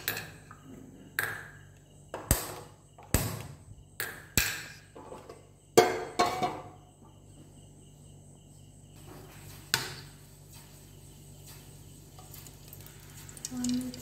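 Metal cookware knocking and clinking at a gas stove: a string of sharp knocks, each ringing briefly, about one a second for the first six seconds and a last one near ten seconds, over a faint steady hum.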